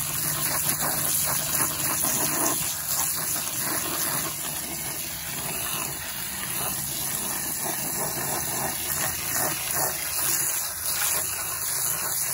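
Garden-hose spray nozzle blasting a jet of water into a plastic bucket of gravel, a steady rushing and splashing as the water washes out the remaining dog waste.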